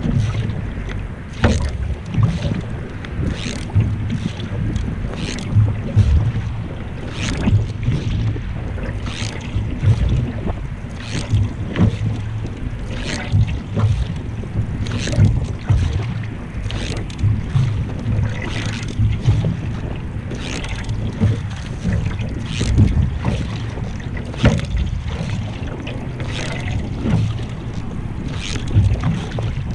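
Canoe paddle strokes, a short splash about once a second as the blade dips and pulls through the water, over a steady low rumble of wind on the microphone.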